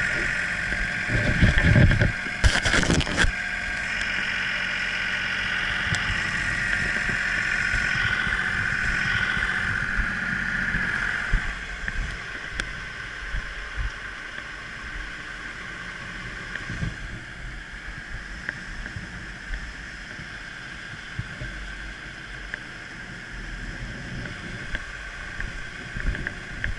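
Fire truck's engine running as it drives, with a steady high whine over a low rumble and road noise. A few knocks sound about two to three seconds in, and the engine and whine become quieter about eleven seconds in.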